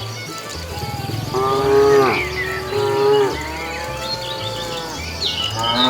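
Cattle mooing: several long, drawn-out moos, one after another, with another beginning near the end.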